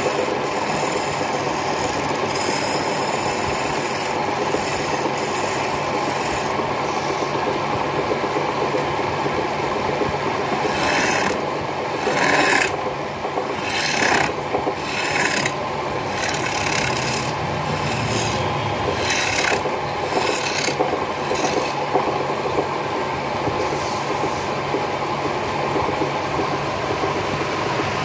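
Hand chisel cutting a wooden spindle turning on a wood lathe: a steady rasping scrape over the lathe's steady hum. There are a handful of brief, louder, higher hissing cuts in the middle stretch.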